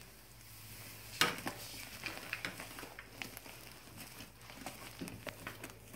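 Fluffy borax slime being kneaded and squeezed by hand: soft squishing with many small wet clicks and pops, one sharper pop about a second in.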